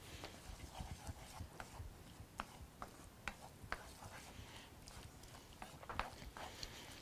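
Light, irregular clicks and taps of a cooking utensil against a skillet as food is stirred and turned, a few knocks a second over a faint hiss.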